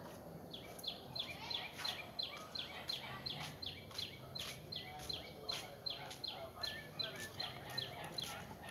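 A bird calling a long, even series of short, high, falling notes, about three a second, over a low steady background hum.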